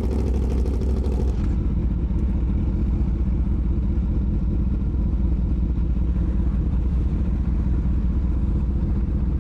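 Motorcycle engine idling steadily, with no revving. A higher hiss over it cuts off about a second and a half in.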